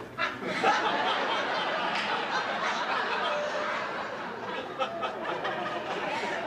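Studio audience laughing, a sustained wave of many people's laughter that holds steady for several seconds.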